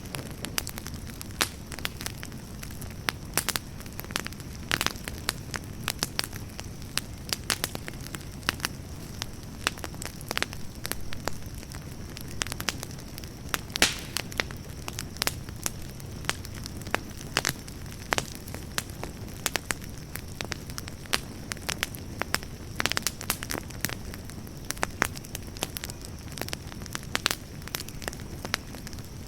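Campfire burning with a steady low rumble and frequent irregular sharp crackles and pops from the burning wood.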